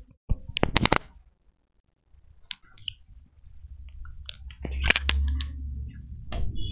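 Handling noise: a handful of sharp knocks and clicks at irregular gaps over a low rumble, with the loudest knock about five seconds in.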